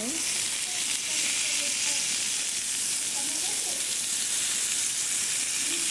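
Pork pieces sizzling steadily in a hot frying pan, lemon juice just dripped in and steaming.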